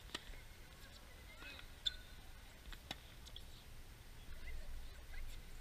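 Tennis balls struck by racquets and bouncing on a hard court during a rally: a few sharp pops, the loudest about two seconds in.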